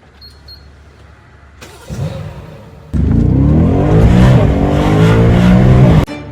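BMW M550i's twin-turbo V8 revving hard through its exhaust: engine sound comes in about two seconds in, jumps suddenly loud about a second later with the pitch climbing and then easing, and cuts off abruptly near the end.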